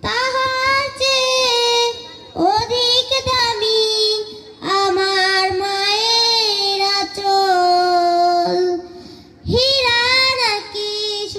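A girl singing a Bengali Islamic gazal solo into a microphone, with no instruments heard: long held notes that waver in pitch, sung in phrases of a few seconds with short pauses for breath, the longest near the end.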